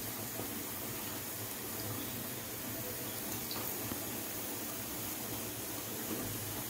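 Cabbage pakodi batter deep-frying in a kadai of hot oil: a steady sizzling hiss from the foaming oil as handfuls of batter are dropped in. The froth shows the pakodis are still giving off water and not yet fried through.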